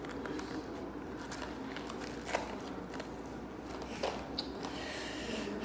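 Handling noise, rustling and fiddling, with two sharp clicks, as handcuffs are pushed into place on their holder.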